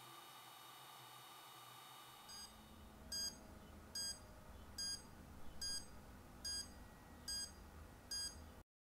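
Pocket radiation dosimeter beeping its alarm, a short electronic beep repeating just under once a second, as its dose-rate reading over the watch's radium-lumed dial and hands climbs past 2 µSv/h. The beeps cut off abruptly shortly before the end.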